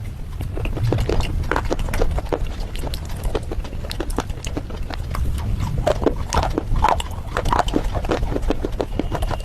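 Red slate bars with clay paste being bitten and chewed close to the microphone: many sharp, irregular crunches over a low rumble.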